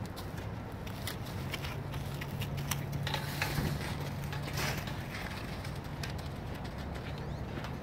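A young bull calf's hooves thudding and scuffing on a dirt-and-gravel paddock as it gallops and bucks, in a quick irregular patter that is busiest in the middle, over a steady low hum.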